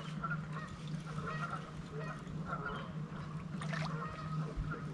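Birds honking in short repeated calls over a steady low hum.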